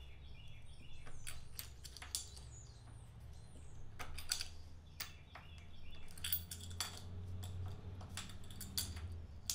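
Scattered light metallic clicks and clinks, with short high bird chirps early on, over a low steady hum.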